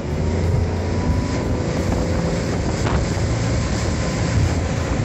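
Mercury 225 V6 outboard running steadily, pushing the boat along at speed, over the rush of water and wind.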